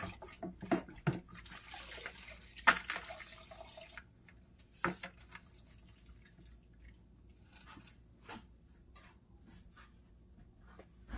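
Kitchen handling sounds: scattered light clicks and knocks, with a short spell of hiss from about one to four seconds in.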